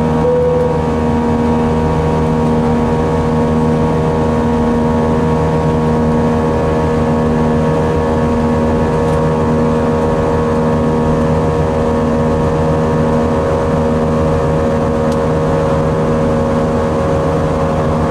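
Airbus A320's IAE V2500 turbofan engines heard from inside the cabin in flight: a steady drone with several constant tones over a steady rush of air.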